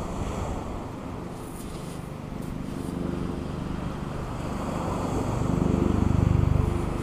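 Wind buffeting the microphone over surf washing on a shingle beach, with a low engine hum that comes in about halfway through and is loudest near the end.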